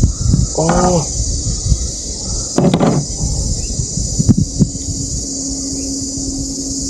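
A steady high-pitched chorus of insects over a low rumble, broken by a few knocks around the middle; from about five seconds in a low steady hum joins it.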